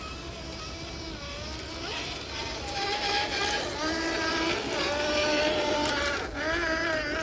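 Electric motor and drivetrain of a Traxxas TRX-6 RC truck whining, the pitch shifting up and down with the throttle and growing louder about two seconds in.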